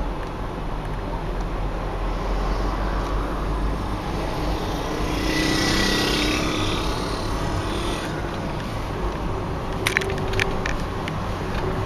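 A road vehicle passing by outdoors, its noise swelling to a peak about halfway through and fading, over a steady rumble. A few sharp clicks come near the end.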